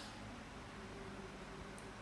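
Faint steady hiss with a low electrical hum underneath: the recording's own noise floor, with no distinct event.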